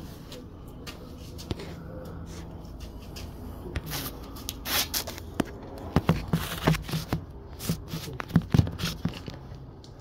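Rope hauling of a blanket-wrapped fridge: scattered scrapes, rustles and short knocks, busier in the second half, over a low steady hum.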